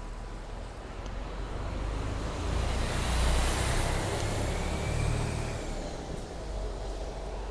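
A road vehicle driving past close by: tyre and engine noise swells to a peak about three seconds in and fades over the next few seconds, with a faint whine that drops in pitch as it goes by.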